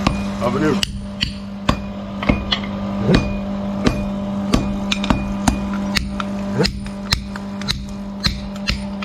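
Blacksmith's hammer striking metal in a steady rhythm, about two blows a second, each with a short ring, over a steady low hum.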